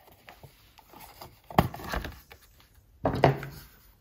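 Plastic clicks and clunks from a Soundesign Sports portable cassette player being handled: two sharp clacks, about a second and a half in and near the end, as its cassette door is opened.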